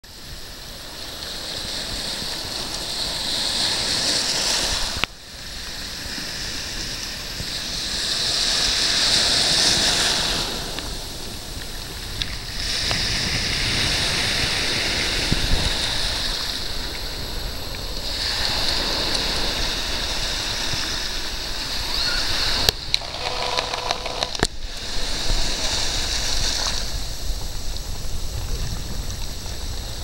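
Surf on a sea beach: small waves breaking and washing up the shore, a rushing noise that swells and ebbs every few seconds.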